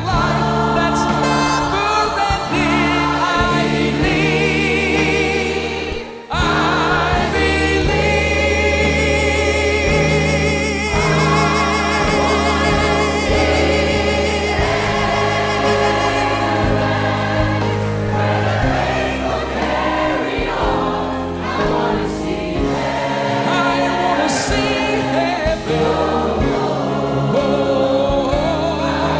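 Church choir and worship band performing a gospel song, with a male lead vocalist singing over the choir and low bass-guitar notes underneath. The sound dips briefly about six seconds in.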